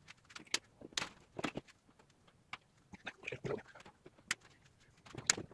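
Irregular sharp clicks and metallic snaps from the wire coil-spring unit of a folding armchair back being worked with pliers, about seven in all, spaced a half-second to a second apart.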